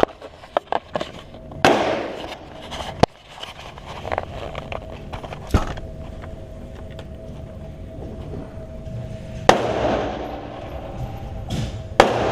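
Gunshots at a range: about five or six single shots fired at uneven intervals, several seconds apart, the louder ones each followed by a short echo, with small clicks between the first shots.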